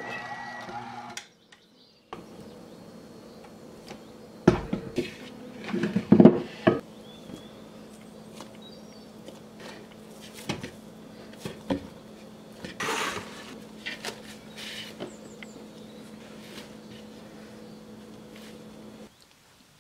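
A KitchenAid stand mixer's motor runs briefly and stops about a second in. Then dough is handled in a wooden bowl: several heavy thumps about five seconds in, lighter knocks and a rustle of cloth later, over a steady low hum.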